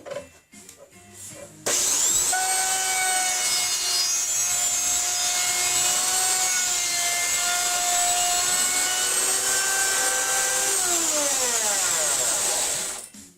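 Electric woodworking power tool starting up a little under two seconds in, its motor whining up to speed and running steadily for about nine seconds, then switched off and winding down with a falling whine.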